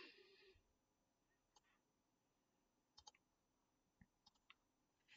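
Near silence with a few faint, sharp clicks of typing on a computer keyboard, spread out irregularly, with a close pair about three seconds in.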